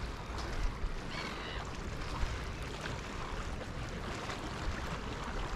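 Wind rumbling on the microphone over a steady open-air hiss, with a few faint high chirps about a second in.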